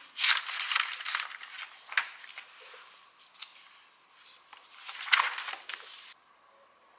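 Notebook paper rustling and flapping as pages are flipped and handled, in two bursts with a single sharp tap about two seconds in; it cuts off suddenly about six seconds in.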